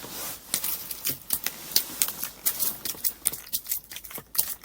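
A freshly caught silver bream flapping: a quick, irregular run of wet slaps and taps, several a second.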